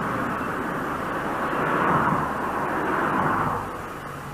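Street traffic: a car driving past, its rushing noise swelling twice and fading away near the end.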